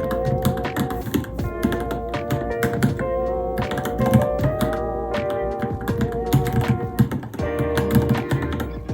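Typing on a Varmilo Minilo mechanical keyboard: a quick, irregular run of keystroke clicks over background music with a sustained, wavering melody.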